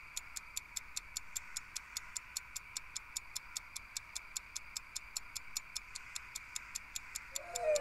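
A clock ticking fast and steadily, about five ticks a second, over a faint steady hiss. Near the end a loud, wavering animal howl begins.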